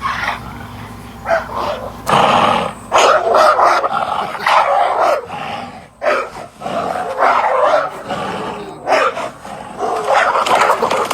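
Dog barking and growling in a rapid series of loud bouts.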